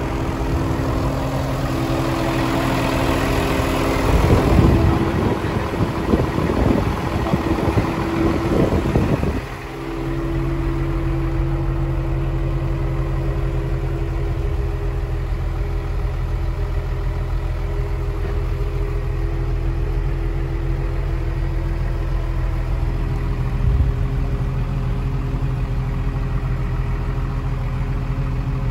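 The diesel engine of a Kalmar DCD 200-12 LB 20-tonne forklift idling steadily. For the first nine seconds or so a louder, rough rushing noise with irregular surges lies over it, then cuts off suddenly, leaving only the even idle.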